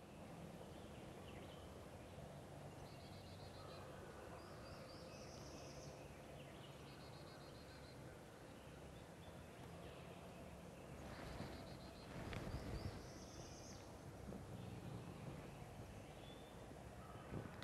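Quiet spring woodland: songbirds sing short, high, repeated-note phrases several times, and wild turkey gobblers gobble at low level, with a louder stretch about twelve seconds in.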